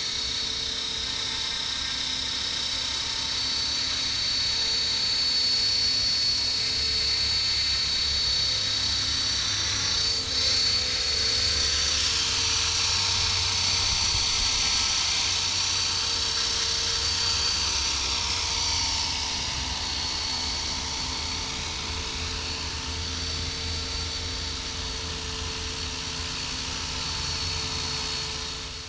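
Electric RC helicopter with a brushless motor hovering: a steady high-pitched whine from the motor and drive over a low rotor hum. It swells a little in the middle as the pilot works the hover.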